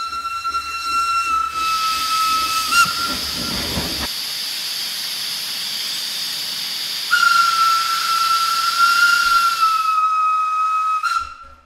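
Steam locomotive sound effect: a steam whistle sounds one steady note for about three seconds, steam hisses for several seconds, and the whistle sounds again for about four seconds before everything stops suddenly near the end.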